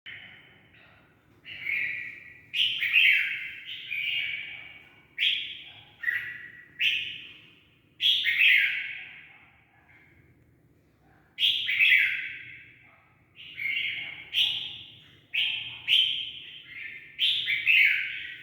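A young bird calling over and over: about a dozen loud calls, each starting sharply and fading within about a second, coming in irregular clusters with short pauses between.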